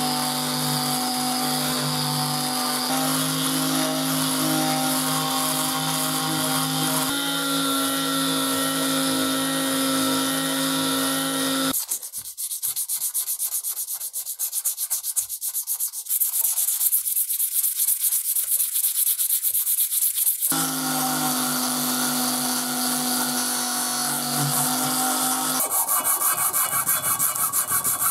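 An electric detail sander runs with a steady buzzing hum as it sands body filler on a cast-iron press frame. About twelve seconds in it gives way to rhythmic rasping strokes of hand sanding with a sanding sponge. The power sander then runs again for a few seconds, and faster hand strokes with a sanding block follow near the end.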